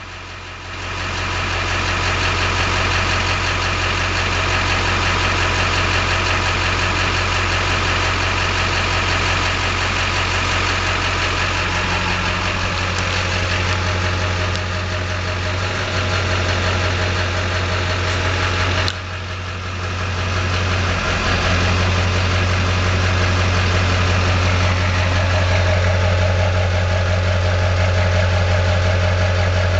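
Chevrolet LB7 Duramax 6.6-litre V8 turbo-diesel idling steadily, which the owner takes for injectors on their way out: worst balance rate 3.2 and idle rail pressure around 5500.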